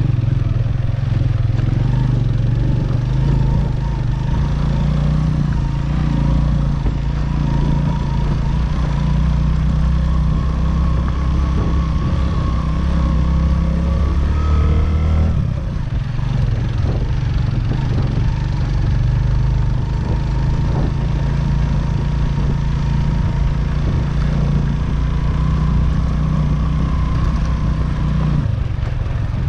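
Motorcycle engine running while under way. About halfway through the engine note drops briefly, then picks up again.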